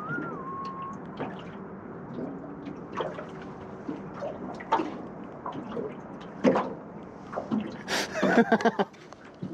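A whistled tune trails off in the first second. Then comes water sloshing and lapping, with scattered knocks and splashes that grow thicker and louder about eight seconds in.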